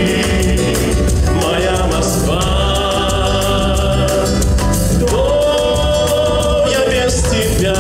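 A man singing a song into a handheld microphone over instrumental backing with a steady beat, holding long notes.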